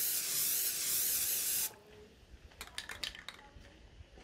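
A loud, steady hiss that cuts off abruptly just under two seconds in, followed by a few faint clicks.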